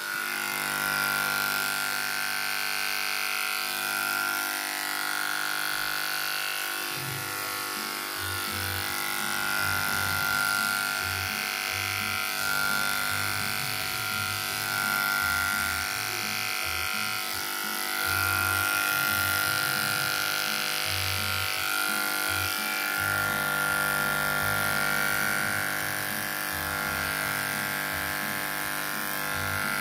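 Corded electric hair clipper running with a steady buzz as it cuts hair at the back of the head, over background music.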